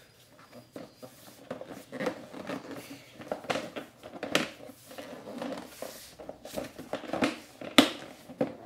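Plastic airbox side cover of a Yamaha YZ250FX being handled and pressed into place by hand: scattered light plastic knocks, clicks and rubbing, with a sharper knock near the end.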